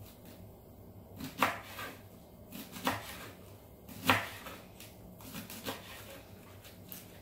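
Kitchen knife slicing through a rolled bundle of collard green leaves on a wooden cutting board: uneven knocks of the blade against the board, about one a second.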